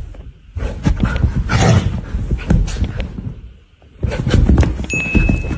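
Husky grumbling and growling in drawn-out, rough vocal runs, very close to the microphone, in two stretches with a short pause between them.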